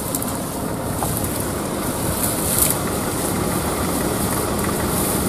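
Car engine running steadily, heard from inside the car, with a low, rough rumble.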